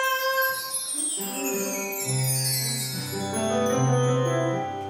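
Keyboard music: a cascade of high tones falling steadily in pitch, joined about a second in by held chords and, a second later, a held bass note.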